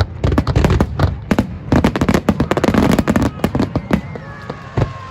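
Fireworks going off overhead in a rapid volley of sharp cracks and bangs that thins out after about three and a half seconds.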